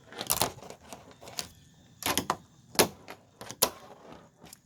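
Tech Deck fingerboard clacking on a trash can lid: sharp taps and clicks as the board is popped and lands, in small groups, the loudest a little under three seconds in.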